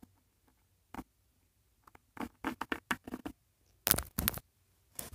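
Irregular scratching and tapping of objects being handled and moved, with the loudest rustles about four seconds in.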